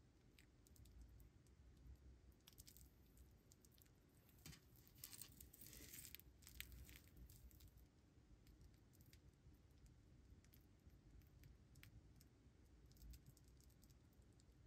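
Near silence with faint handling noise: fabric gloves rustling on a metal mesh watch bracelet, with a few light clicks, loudest between about four and a half and seven seconds in.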